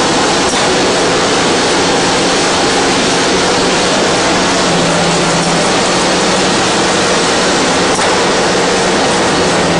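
Automatic cartoning machine running: a loud, steady mechanical noise with a low hum underneath.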